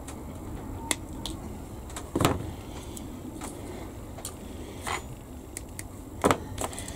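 A few scattered small clicks and knocks of hand tools and a plastic model part being handled on a workbench as side cutters are swapped for another pair; the loudest knock comes about two seconds in.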